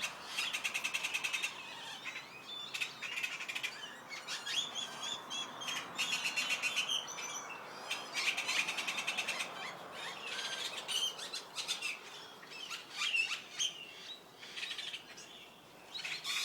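A group of birds chirping and calling together in a tree, with rapid trills and short chirps overlapping one another.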